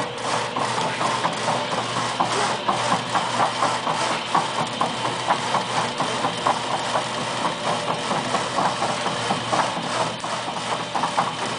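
FPS Hurricane pallet stretch wrapper running, its turntable turning and film carriage climbing while stretch film is pulled off the roll around the load: a steady motor hum with a rapid run of small clicks and crackles.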